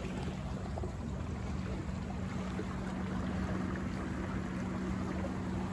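Water rushing and splashing along the hull of a Buccaneer 18 sailboat moving briskly downwind, with a steady low hum running under it.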